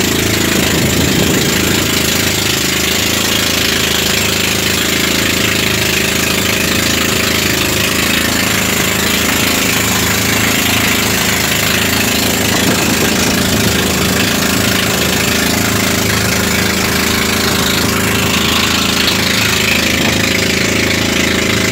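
Outrigger boat's engine running steadily under way, a loud, even drone with a steady hiss over it.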